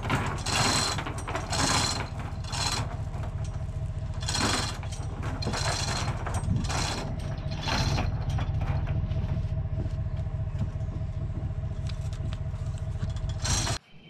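Chain hoist lowering a sawmill head from a lifting frame: rattling chain and ratchet clicks coming in bursts roughly once a second over a steady low rumble, cutting off abruptly near the end.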